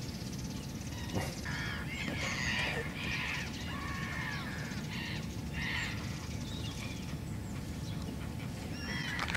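Birds calling: a string of short calls over a faint steady outdoor background.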